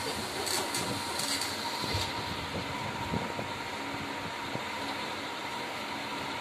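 Steady hissing background noise with a faint constant high tone, and a few soft knocks.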